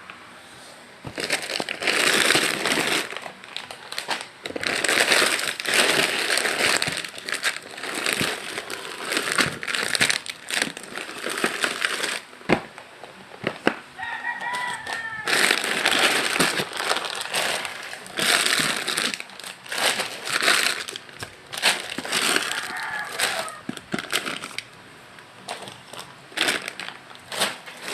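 Plastic wrapping and packaging crinkling and rustling in irregular bursts as items are handled and unpacked from a box.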